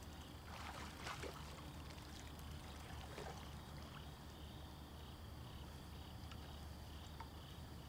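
Faint splashing and rustling as a small channel catfish is reeled in to the bank, over a low steady hum.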